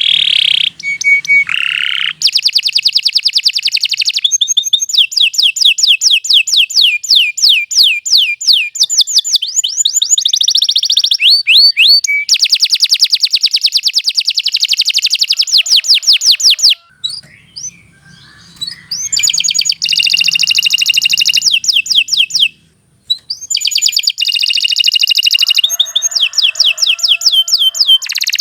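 Domestic canary singing a long, loud song of rapid rolling trills, each made of quickly repeated high notes. The song breaks off briefly twice in the second half.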